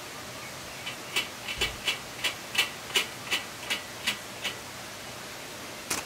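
Steady rushing of a mountain valley stream, with a quick run of about ten sharp clicks or taps, roughly three a second, starting about a second in and stopping near the middle.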